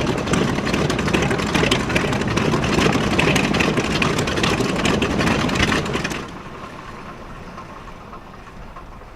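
B-25J Mitchell's twin Wright R-2600 radial engines running with a rough, crackling exhaust; about six seconds in the sound drops suddenly to a much quieter hum.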